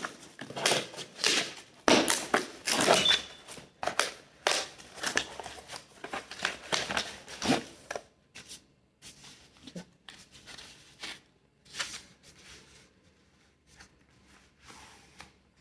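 Rustling, crinkling and clicking of a phone's retail box and packaging being handled and opened. It is busy for about the first half, then only a few faint taps.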